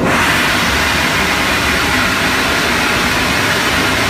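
Steam locomotive Ernest S. Marsh venting steam: a loud, steady hiss that starts suddenly and holds without a break.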